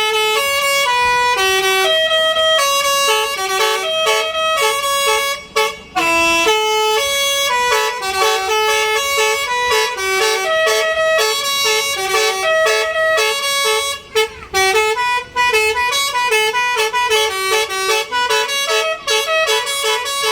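Bus basuri ('telolet') horn, a multi-note electric horn, playing a quick melody of short tones stepping up and down. It breaks off briefly about five and a half seconds in and again around fourteen seconds in.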